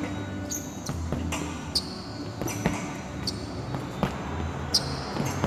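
Gloved punches thudding on a hanging Everlast heavy bag, about seven hits a little under a second apart.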